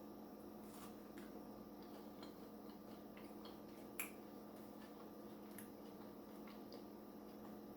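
Near silence: a steady faint hum with a few soft clicks, one sharper about four seconds in.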